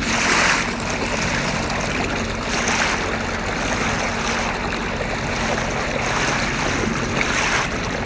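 Water splashing and rushing along the side of a small boat under way, a steady noise with a low hum underneath.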